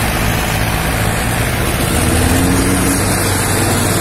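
Two diesel tractor engines, a Mahindra 265 DI and an Escort 335, working hard under heavy load as they pull a stuck, sugarcane-laden trolley. The engine note is steady, then wavers with a slightly falling tone in the second half.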